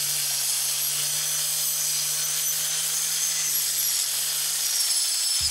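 Electric angle grinder with a cutting disc cutting through OSB board: a steady high-pitched motor whine over the grinding noise of the cut.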